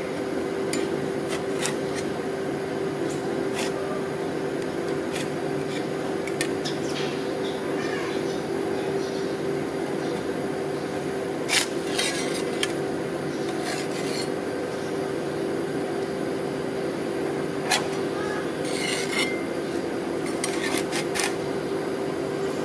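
Metal spatula scraping and pushing frozen ice cream along a stainless-steel cold plate to roll it up, with scattered sharp scrapes and clinks of the blade on the steel, over a steady hum from the ice-cream machine.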